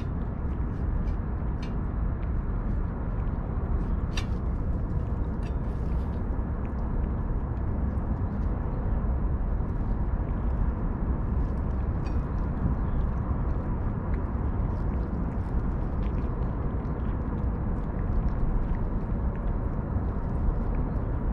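Cats eating wet food from stainless-steel dishes: scattered small clicks of chewing and licking over a steady low background rumble.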